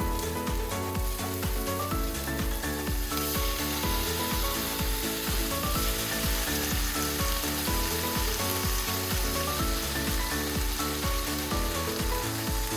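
Pork belly and vegetables sizzling as they are stir-fried in a frying pan, the hiss getting stronger about three seconds in, over background music with a steady beat.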